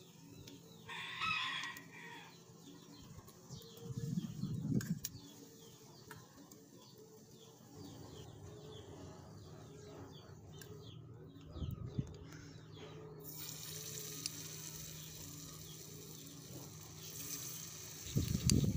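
Hot oil in a small pot sizzling as pakora batter fries, the hiss rising sharply about two-thirds of the way through when fresh batter goes in. A rooster crows briefly about a second in, and a few dull knocks of utensils on the pot come at intervals, the last near the end.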